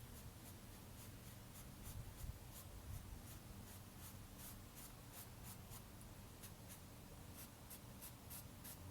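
Faint, quick scratching strokes of a paintbrush on canvas, about two or three a second, as acrylic paint is dabbed on.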